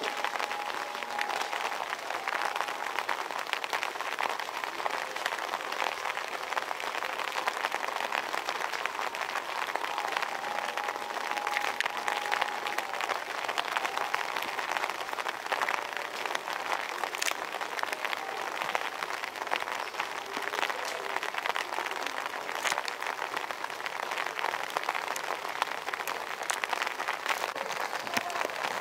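Steady rain falling, a dense patter of countless drops with no pause.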